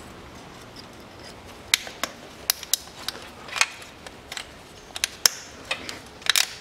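Sharp plastic clicks and snaps of wiring-harness clips being pried off their mounts and the harness being handled on an engine, about a dozen irregular clicks.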